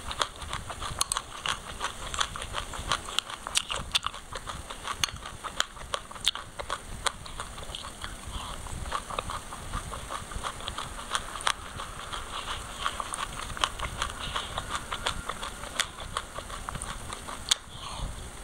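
Close-up chewing of a mouthful of dry white sesame seeds: a dense, continuous crackle of small crunches, with sharper clicks here and there.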